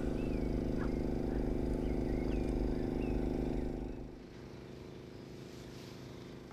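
An engine running steadily with a low, even hum, fading down about four seconds in.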